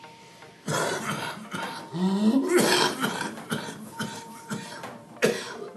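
A person coughing: a run of repeated harsh coughs beginning under a second in, with a short rising pitched sound among them about two seconds in.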